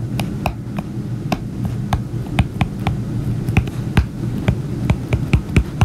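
Stylus tapping and clicking on an iPad's glass screen during handwriting: an irregular run of sharp clicks, several a second, over a steady low hum.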